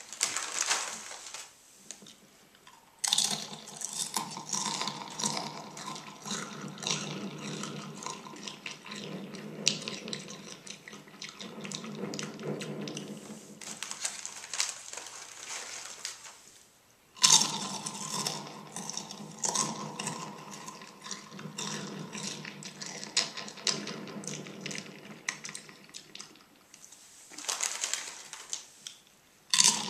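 Cool Ranch Doritos tortilla chips being chewed right at a karaoke microphone: loud, dense crunching with an echo effect on it, in long runs broken by short pauses between mouthfuls.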